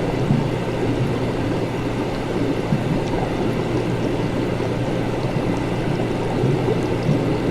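Laboratory ambience: a steady low hum under a dense, even wash of noise, with a few faint ticks scattered through it.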